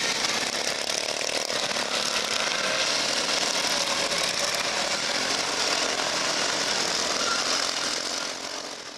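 Small engines of racing ride-on lawnmowers running, a steady buzzing din that fades out near the end.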